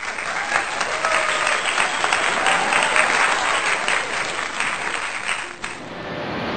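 Crowd applause, a dense steady clapping with a few voices, fading down near the end.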